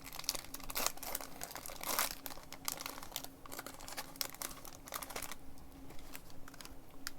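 Foil Pokémon booster pack wrapper crinkling in the hands as it is torn open, the crackling thinning out about five seconds in.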